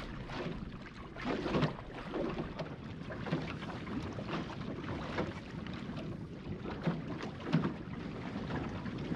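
Wind buffeting the microphone and water rushing and splashing along the hull of a small plywood sailing skiff under way, coming in uneven surges.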